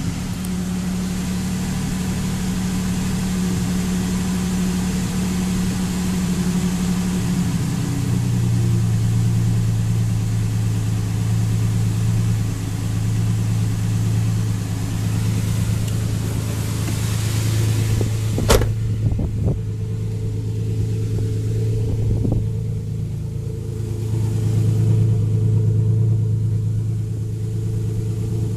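Ford Ranger pickup's engine idling steadily just after its throttle plate and mass airflow sensor were cleaned; about eight seconds in the idle drops to a lower, steady note. A single sharp knock sounds about eighteen seconds in, with a lighter one a few seconds later.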